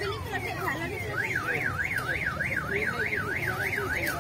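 Electronic siren wailing in a fast warble, its pitch sweeping up and down about three to four times a second, starting about a second in over background crowd chatter.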